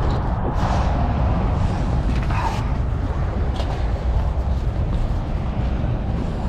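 Steady low wind rumble buffeting the microphone, with a few brief rustles and knocks as a fabric cover is pulled over a loaded folding trolley.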